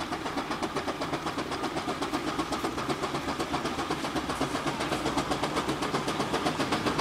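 Burrell steam traction engine 'Spider' (No. 3017) working along the road, its exhaust beating in a quick, even chuff-chuff rhythm that grows slowly louder as it approaches.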